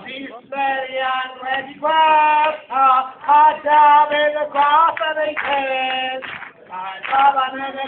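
A voice singing a melody unaccompanied, in held notes that bend in pitch, phrase after phrase.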